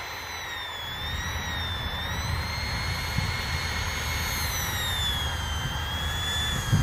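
Electric ducted fans of a Freewing F-22 radio-controlled jet whining steadily as it taxis, the pitch dipping and rising a little with the throttle, over a low rumble. A brief low thump right at the end.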